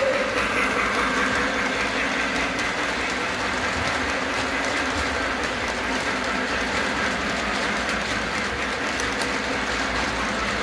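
Three-rail O-gauge model train running past close by, its wheels clattering over the track joints with a steady rumble.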